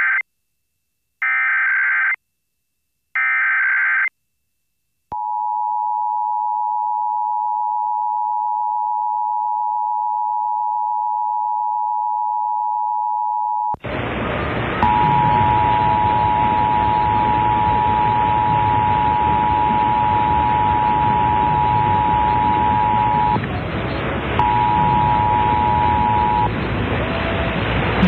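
Emergency Alert System tones for a Required Monthly Test: three short bursts of the warbling SAME data header, then the steady two-tone attention signal for about eight seconds. After that, hiss comes in and the two-tone signal returns over it, first for about eight seconds and then briefly once more.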